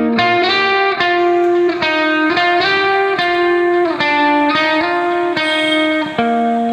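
Background music: a slow instrumental melody of held notes, some sliding in pitch.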